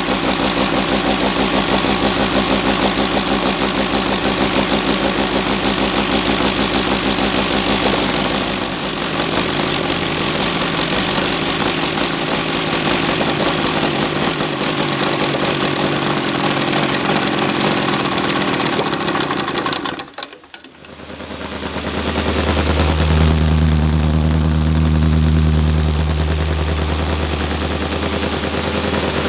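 OS FR5-300 five-cylinder four-stroke radial model engine running steadily, fitted with a ring exhaust collector. About two-thirds of the way through, the sound drops out briefly and comes back with a much stronger, deeper low note.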